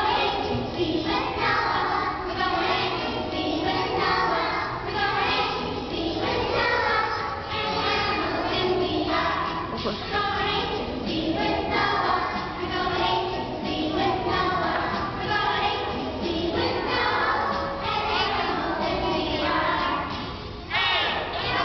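A group of two-year-olds singing a children's alphabet song together over recorded backing music.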